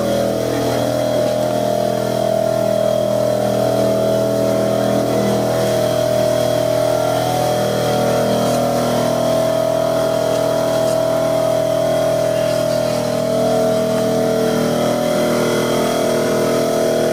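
Steady mechanical hum made of several fixed tones, unchanging in pitch and level throughout.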